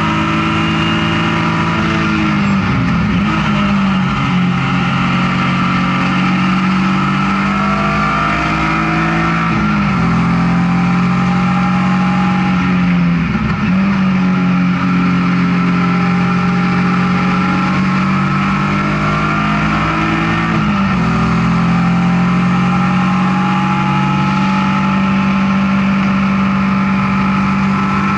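BMW E36 M3 race car's straight-six engine heard from inside the cabin at racing speed, running hard, with its pitch dropping sharply and climbing back about four times. Road and wind noise run underneath.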